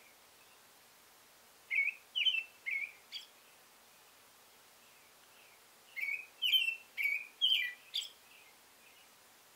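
Male American robin singing its territorial song: two runs of short, clear whistled phrases, four notes about two seconds in and five more around six seconds in.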